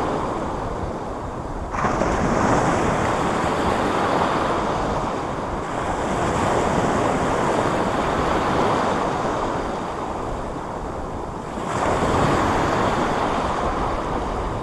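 Small sea waves washing and breaking close to the microphone, with wind buffeting it. The surf swells louder about two seconds in and again about twelve seconds in.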